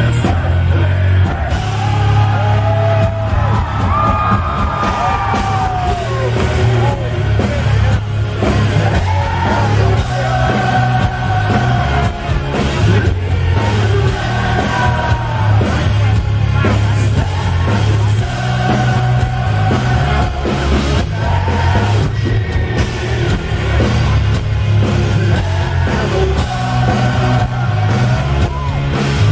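Heavy metal band playing live and loud: a singer's shouted vocals over distorted guitars, bass and a pounding drum kit.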